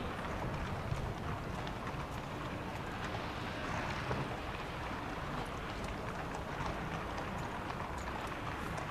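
Steady outdoor background noise with wind on the microphone and a few faint scattered ticks.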